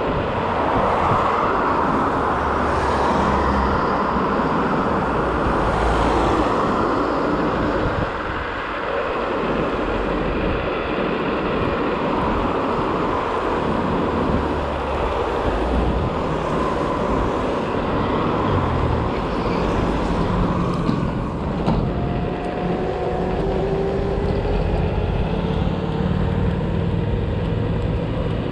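Motor scooter running along a road, with wind rushing over the microphone and traffic noise; from about two-thirds of the way in, a thin engine tone slowly rises in pitch.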